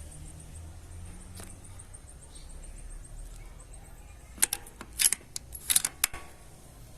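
A quick cluster of about six sharp clicks and knocks, packed into under two seconds past the middle, over a faint high chirping that repeats several times a second.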